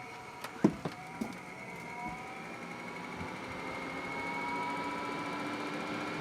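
Endless Breeze 12-volt roof fan switched on with a few clicks, then its motor and blades spinning up with a whine that rises slowly in pitch and settles into a steady run.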